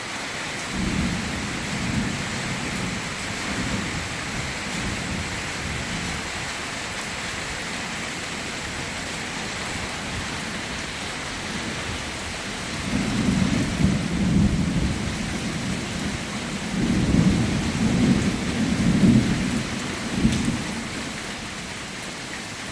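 Rain falling steadily through a thunderstorm, with rolling thunder rumbling in waves: a lighter roll at the start, then two louder rumbles about halfway through and again a few seconds later.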